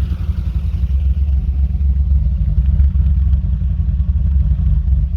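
BMW E30 320i's M20 inline-six idling, a steady low exhaust note. The idle is a little uneven, which the owner puts down to sharper aftermarket camshafts.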